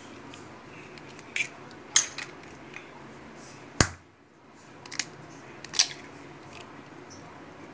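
Eggs being cracked open by hand into a glass bowl: several short, sharp clicks and cracks of eggshell, the loudest about two seconds in.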